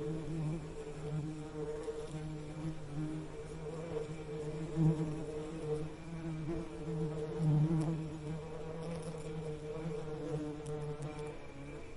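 Bees buzzing: a steady low buzz that wavers in pitch and swells louder and softer, peaking about five seconds in and again near eight seconds.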